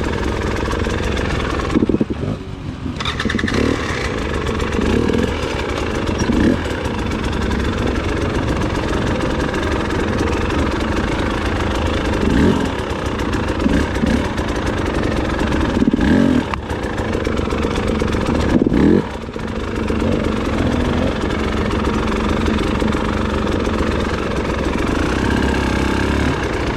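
Motorcycle engine running and revving again and again in short throttle bursts, with a sudden brief drop in the engine about two seconds in and again near the end of the second third.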